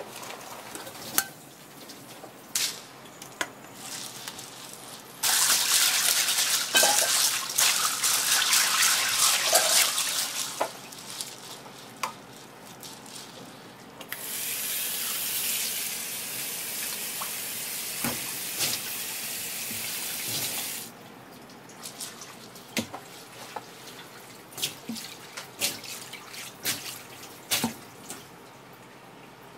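Kitchen tap water running into a sink in two spells: a louder, splashing rush about five seconds in, then a steadier stream from about fourteen seconds in that lasts about seven seconds. Short clinks and knocks of metal pans and bowls come in between.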